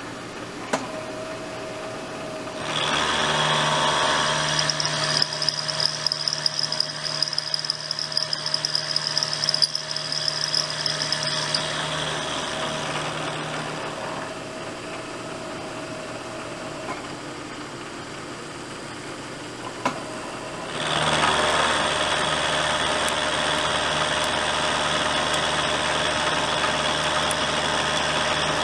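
Vertical milling machine's end mill cutting metal, with a steady high whine over the cutting noise from about three seconds in to about twelve. The cut then eases off to the spindle running alone, and a second cut starts abruptly about 21 seconds in, with mist coolant spraying onto the cutter.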